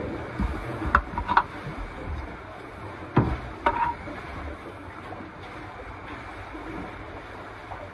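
A few sharp handling knocks and clicks, in two clusters about a second in and about three seconds in, as the plastic battery charger is moved and set down. Steady wind and water noise underneath.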